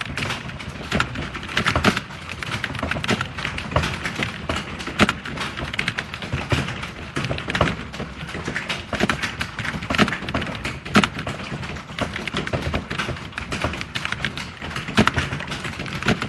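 Fast, continuous typing on a computer keyboard: a rapid, uneven stream of key clicks, several a second, with a few louder strokes standing out.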